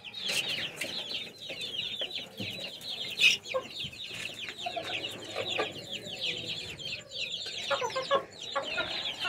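A flock of young chicks peeping continuously, many short high calls sliding down in pitch, with a few lower clucks from adult chickens mixed in.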